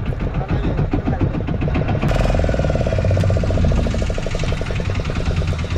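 A fishing boat's engine running with a rapid, even knock; it gets somewhat louder about two seconds in.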